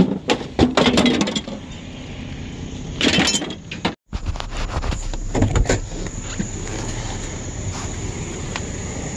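Metal tools and junk clattering and clinking as they are tossed into a pickup truck's bed, in two bursts. After a cut about four seconds in, a steady low rumble with a few scattered clicks and knocks follows.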